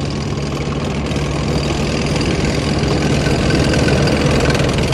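A steady motor running, a continuous low hum under a dense hiss.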